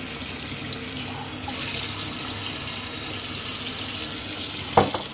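Kitchen tap running, its stream splashing onto and into a ceramic mug in a stainless steel sink; the splashing gets louder about a second and a half in. A single sharp knock sounds near the end.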